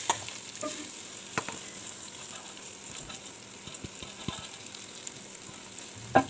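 Rice and whole spices frying in hot oil in a pressure cooker: a steady sizzle with scattered light clicks as the rice is stirred. A sharp, louder knock comes near the end.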